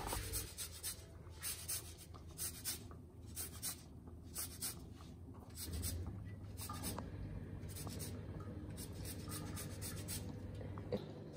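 Lime being zested on a handheld rasp grater: repeated short scratchy strokes of the peel across the fine blade, a few a second.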